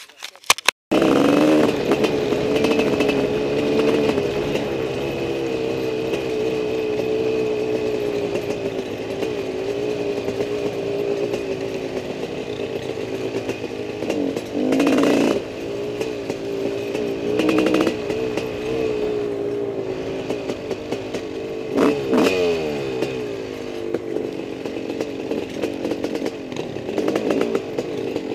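Dirt bike engine running under way along a trail. There is a burst of throttle about halfway through and another about three-quarters through, each followed by the pitch falling as the throttle is eased off.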